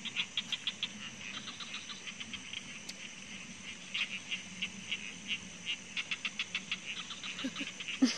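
Night chorus of crickets: a steady high-pitched trill under trains of rapid chirping pulses that repeat every second or so.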